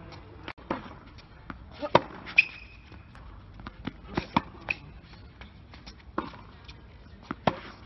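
Tennis balls struck by a racket and bouncing on a hard court: a string of sharp pops at uneven intervals, some in quick pairs, with two brief high squeaks following hits partway through.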